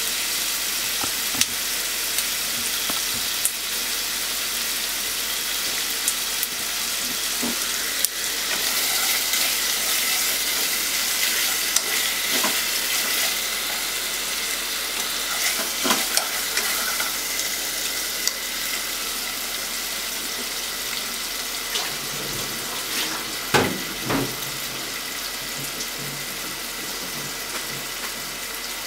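Chicken pieces sizzling steadily in hot oil in a nonstick pot, with scattered clicks of chopsticks against the pot as the pieces are turned.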